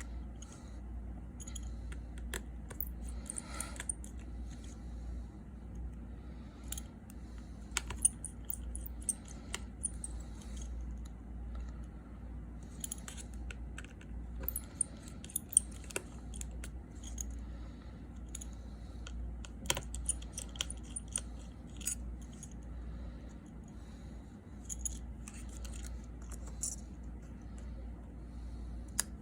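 Light, scattered metallic clicks and taps of a precision screwdriver and tiny screws being worked out of an iPhone 6s Plus's screen bracket, over a steady low hum.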